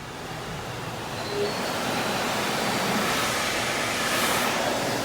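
Water jets of an automatic car wash spraying over the car, a steady rushing hiss that swells about a second in and stays loud.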